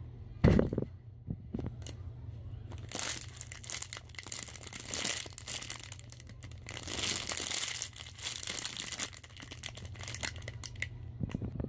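Crinkling and rustling as a Hello Kitty donut squishy toy is handled and squeezed, with a soft knock about half a second in.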